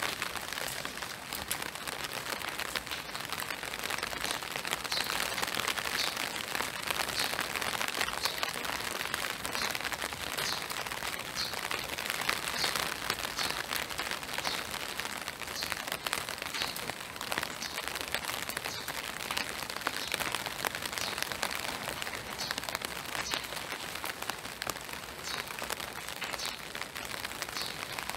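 Steady spring rain pattering on trees and a wet boardwalk, a dense hiss of fine drops, with faint regular footsteps about every two-thirds of a second.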